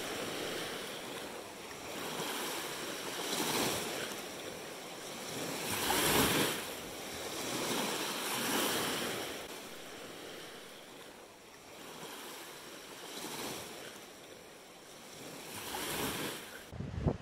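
Small lake waves lapping and washing up onto a sand beach, each wash swelling and fading every two to three seconds.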